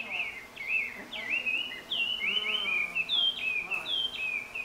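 A songbird singing a fast, unbroken string of short whistled notes, each sliding up or down in pitch.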